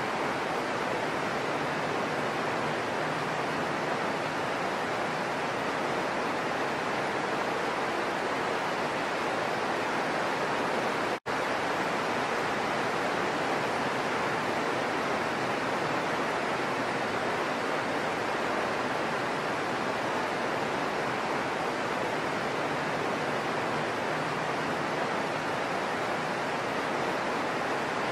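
Heavy rain falling steadily, a dense even hiss that cuts out for an instant about eleven seconds in.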